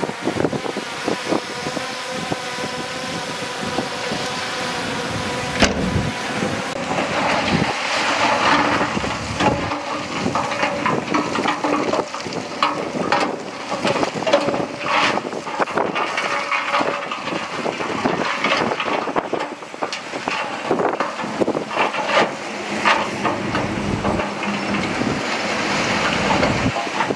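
Komatsu D31P crawler dozer's diesel engine running steadily under load, with frequent clanks and knocks from its tracks and the rock it is working, growing busier about six seconds in.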